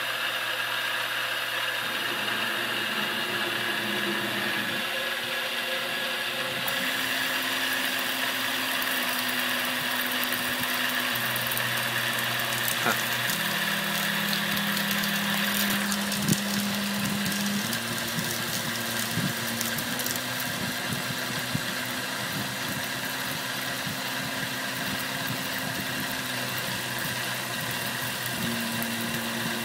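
CNC-converted Grizzly G0704 benchtop mill running a program: the spindle turns a quarter-inch end mill at just over 1,000 RPM, cutting polycarbonate. A steady high whine sits over a lower hum that shifts pitch in steps every few seconds as the table moves.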